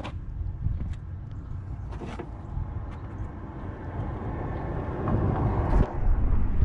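A car battery in its felt insulation jacket being pulled up and out of the engine-bay tray: rustling and scraping with a few sharp knocks, over a steady low rumble that gets louder near the end.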